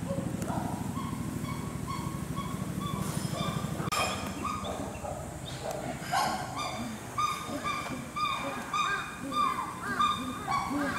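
Chimpanzees giving short, repeated hooting calls, several voices overlapping, rising in pitch and growing louder toward the end, like a pant-hoot chorus building up. A low, rapid rumble runs underneath for the first four seconds and stops about four seconds in.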